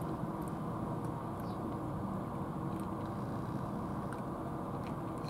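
Steady low rumbling noise with faint, scattered light clicks of a cat chewing food from a plastic dish.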